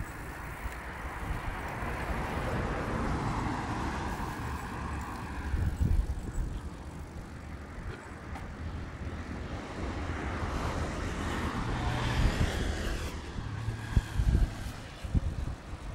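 Cars passing on the road alongside, twice swelling up and fading away with tyre and engine noise, over a low gusty rumble of wind on the microphone of a phone carried on a moving bicycle.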